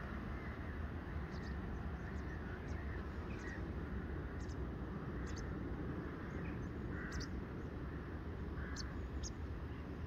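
Quiet outdoor ambience: a steady low rumble with scattered short, high bird chirps.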